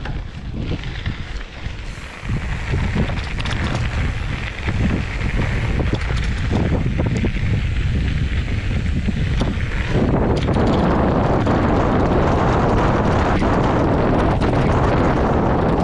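Wind buffeting the microphone of a chest-mounted camera on a moving hardtail mountain bike, with the tyres rolling over a dirt trail and the bike rattling. From about ten seconds in the noise grows louder and harsher as the tyres run over loose stones.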